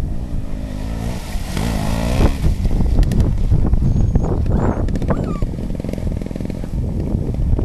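Gas Gas trials motorcycle's two-stroke engine revving as it rides through mud and puddles, its pitch rising over the first couple of seconds.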